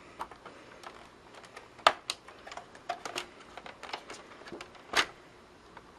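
Light clicks and taps of plastic and metal parts as the power supply unit is worked loose and lifted out of an opened PS3 Slim console, with two sharper knocks, about two seconds in and about a second before the end.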